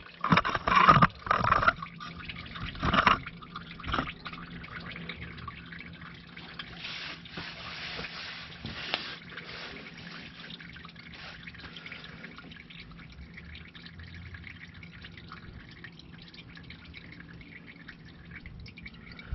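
Engine oil trickling and dripping from the oil pan drain hole into a drain pan, a thin stream getting fainter toward the end as it breaks up into drips, the sign that the drain is nearly finished. A few louder knocks come in the first three seconds.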